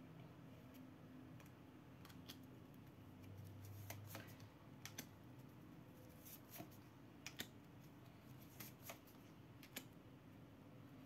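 Faint, irregular clicks and taps of tarot cards being handled and laid down on a table, about a dozen spread unevenly, over a low steady room hum.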